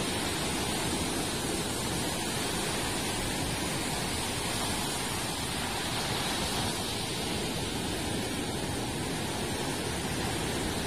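Steady rush of surf from a rough sea running big waves, mixed with wind noise.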